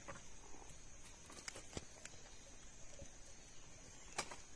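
Scattered light taps and clicks of skewered veg seekh kababs being handled and set down on a wooden board, the sharpest about four seconds in. A faint steady high-pitched hum runs underneath.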